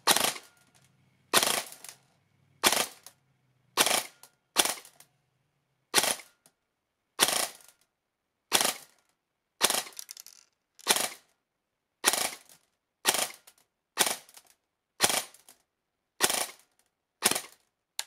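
Airsoft rifle firing single shots through a chronograph during a velocity test, about sixteen shots spaced roughly a second apart, each short and sharp. The BBs register around 370 FPS.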